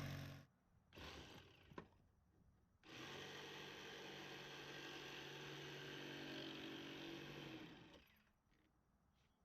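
Electric jigsaw cutting through a hollow-core interior door, heard faintly: a short burst about a second in, a click, then a steady run of about five seconds that stops abruptly.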